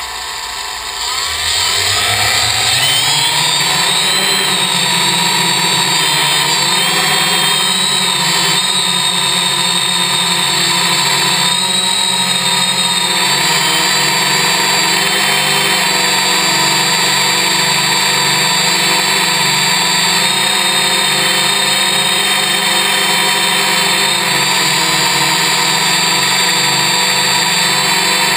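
Y6 multicopter's six electric motors and propellers spinning up with a rising whine over the first two seconds or so, then running steadily with small rises and falls in pitch as the throttle changes.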